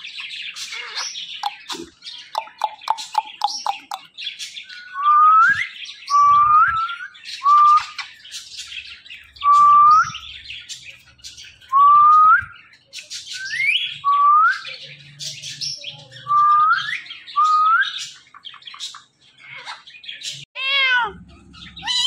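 Caged Indian ringneck parakeets calling: quick chattering clicks and a fast run of pulses at first, then about ten short rising whistles, one every second or two, mixed with harsh squawks, and a fast wavering call near the end.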